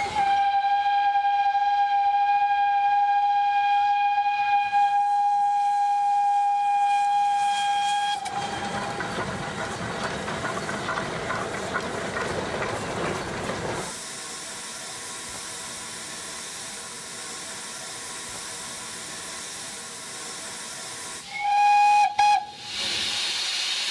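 Steam locomotive whistle blowing one long steady blast of about eight seconds, followed by several seconds of steam and train running noise. Later, heard from the footplate, the whistle gives a short blast as the cord is pulled, then steam hisses.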